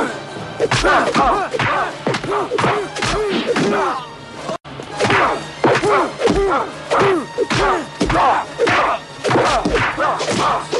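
Film fight soundtrack: a rapid series of punch and kick impact sound effects with shouts and grunts, over music. It cuts out for an instant about halfway through.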